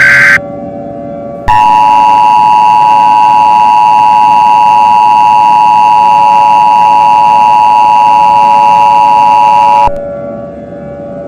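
Emergency Alert System activation: a burst of the SAME header's screeching data tones ends just after the start. About a second later the EAS attention signal, two steady tones sounded together, comes in loud and holds for about eight seconds before cutting off sharply, leaving a faint low drone.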